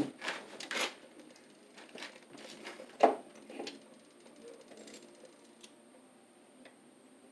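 Clicks and taps of a Square D QO double-pole circuit breaker being handled and fitted in a breaker panel: a few quick clicks at the start, a louder sharp click about three seconds in, then fainter taps.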